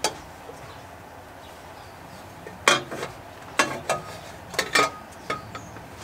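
Several sharp, irregular clinks and knocks of a polished aluminium intercooler pipe being handled and test-fitted in a car's engine bay, mostly in the second half, over a low steady background hiss.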